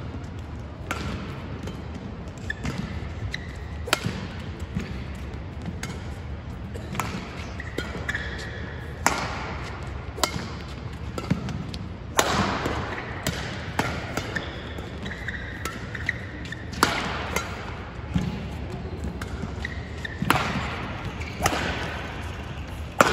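Badminton rally: rackets striking the shuttlecock every second or so, each hit a sharp crack, mixed with shoe squeaks and footfalls on the court mat.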